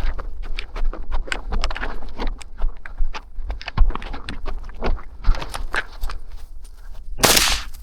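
Footsteps crunching and brushing through dry field cover, a rapid irregular string of crackles and snaps, with a brief loud swishing burst near the end.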